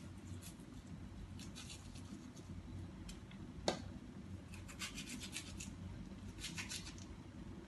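Kitchen knife slicing and splitting a fibrous torch ginger bud (bunga kantan), in several short clusters of crisp cutting and scraping, with one sharper click about three and a half seconds in. A steady low hum runs underneath.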